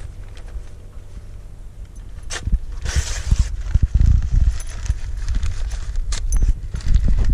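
Footsteps over rocks and loose beach stones: irregular knocks, clicks and scrapes, busier in the second half, with a brief rustle about three seconds in.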